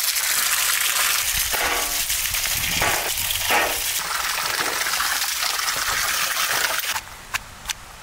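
Running water gushing steadily over green bell peppers and spring onions as they are rinsed in a steel pot. About seven seconds in the water sound cuts off and a stone pestle begins knocking sharply on garlic in a stone mortar, about two or three strikes a second.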